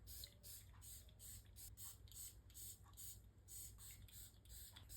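Near silence: faint room tone with a soft high hiss pulsing about three times a second.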